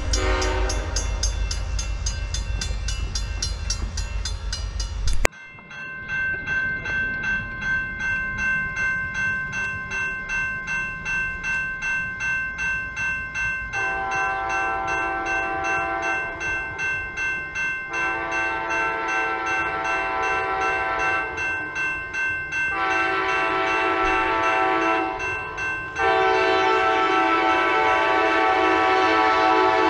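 A freight train rumbling through a grade crossing with the crossing bells ringing, then an abrupt cut to crossing bells ringing alone. About halfway through, an approaching Amtrak SC-44 Charger locomotive sounds its horn in the grade-crossing pattern: long, long, short, long, the last blast still going at the end.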